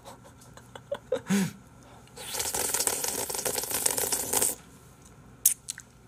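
Close-up crunching and chewing of a bite of frozen ice-cream bar: a dense crackling for about two seconds in the middle, after a brief hum, with a few sharp clicks near the end.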